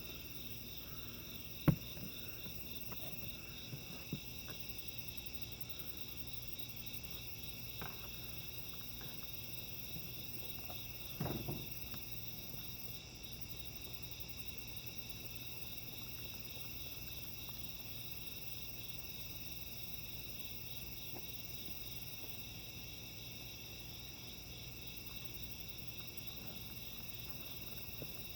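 Steady chorus of chirping insects, with a sharp click about two seconds in and a brief, fainter low sound around eleven seconds.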